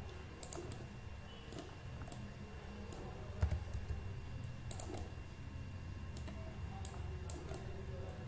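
Irregular computer mouse and keyboard clicks, about a dozen scattered over a few seconds, over a steady low hum.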